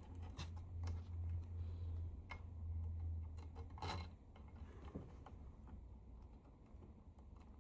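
Light scattered clicks of small metal nuts and bolts being handled and fitted by hand to a model locomotive rod's split bronze bearing, with one sharper click just before four seconds in. A steady low hum runs underneath and drops away at about the same point.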